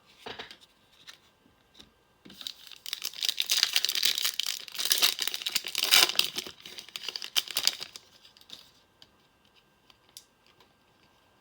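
A trading card pack's wrapper being torn open and crinkled: a dense crackling run that starts about two seconds in, lasts about five seconds, then gives way to a few faint handling clicks.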